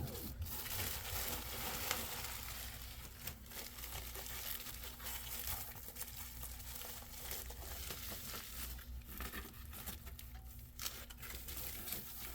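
Crinkling and rustling of packaging as a replacement laptop screen is unwrapped, with many small irregular crackles and rustles.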